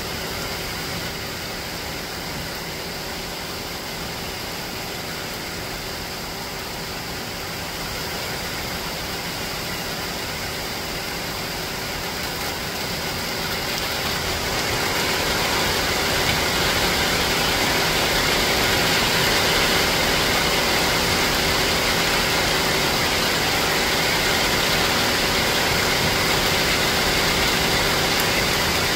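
Steady rain, getting louder about halfway through, over a faint steady hum.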